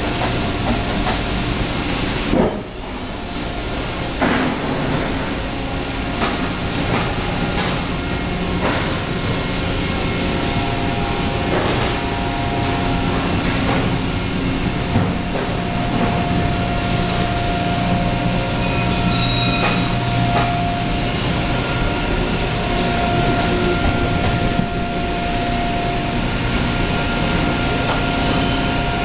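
495-ton Sumitomo injection molding machine running, a steady hum and hiss with sharp knocks and clunks here and there, the loudest about two seconds in. A steady high tone joins the noise past the middle.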